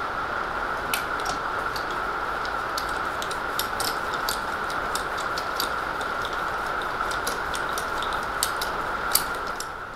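Scattered clicks of a hand wrench and socket as aluminium wheel nuts are tightened by hand rather than with an impact wrench, over a steady background hum.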